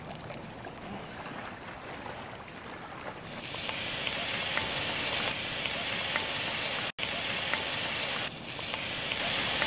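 Diced onion frying in olive oil in a pot, a quiet hiss with small crackles; about three seconds in, diced grape tomatoes are tipped in and the pan sizzles much louder, a steady hiss with spattering crackles.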